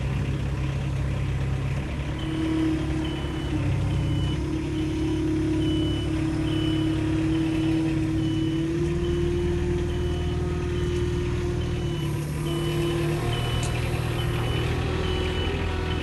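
Palfinger truck-mounted forklift running with a steady engine hum and a whine that rises slightly partway through. Its reversing alarm starts beeping about two seconds in, a little under twice a second.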